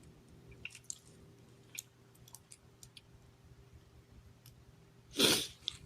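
Faint, scattered small clicks and taps of plastic Lego Technic parts being handled. About five seconds in comes a louder, short rush of noise.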